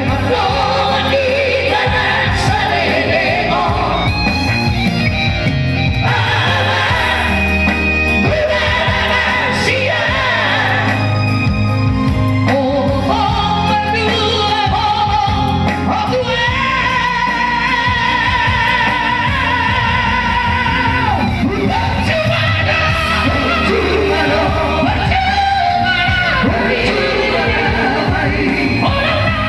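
A vocal trio singing in harmony with a wavering vibrato over steady instrumental accompaniment.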